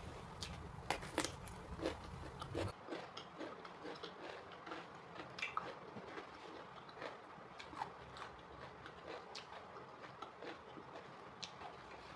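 Close-miked eating sounds: a few crisp crunchy bites in the first few seconds, then softer chewing with small wet clicks.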